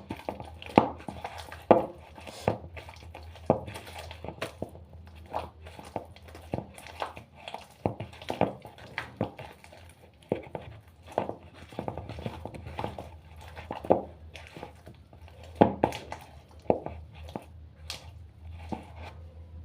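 Soft mandazi dough, with milk just added, being mixed and kneaded by hand in a bowl: irregular wet slaps and knocks.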